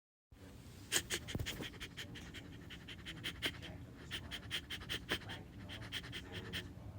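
A dog panting fast and evenly, about six breaths a second.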